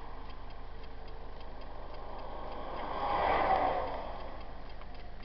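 Road noise inside a Hymer motorhome at motorway speed, with a faint regular ticking, about three ticks a second. A passing lorry's rush swells and fades about three seconds in.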